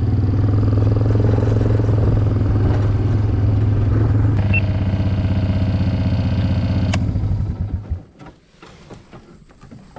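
A vehicle's engine running steadily, its note shifting about four seconds in, then switched off about eight seconds in, leaving only a few faint clicks.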